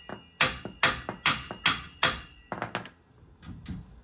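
Hammer blows on the steel steering knuckle and CV axle of a GMC Sierra 2500's front suspension, knocking them apart: a run of sharp strikes about two a second with a metallic ring, turning to lighter taps near the end.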